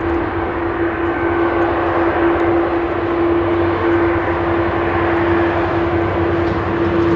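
Jet engines of an Airbus A330-200 running at low taxi power: a loud, steady engine noise with a constant droning tone through it and a low hum underneath.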